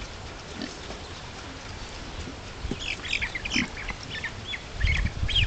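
Farmyard fowl calling: after a quiet start, a quick run of short, high calls begins about halfway through and keeps going to the end.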